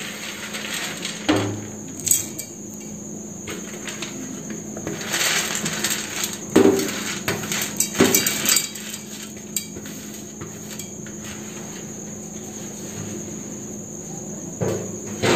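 Roasted peanuts and chana dal poured and scraped off a steel plate into a steel mixer-grinder jar: scattered rattles and clinks of dry nuts and lentils against metal, busiest in the first half.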